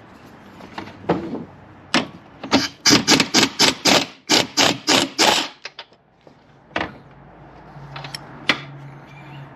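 A quick, fairly even run of sharp knocks, about five a second for some three seconds, from hand tools at work on a car, followed by a couple of single knocks.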